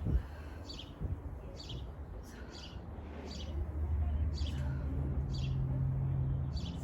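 A bird calling in short, high chirps, repeated at a steady pace of a little more than one a second, over a low rumble.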